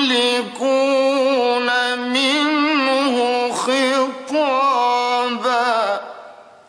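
A man reciting the Quran in a slow, melodic chanted style, drawing out long ornamented notes over several phrases; the voice fades out near the end.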